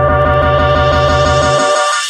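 Background music: steady held notes over a quick, even pulse. Near the end the bass drops out and the music thins away as the track fades.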